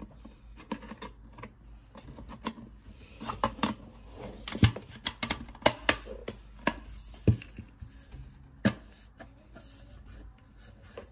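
Irregular sharp clicks and snaps from the snap-fit clips of an Apple USB SuperDrive's cover as it is pressed back onto the case and squeezed along its edges; the loudest snap comes about four and a half seconds in.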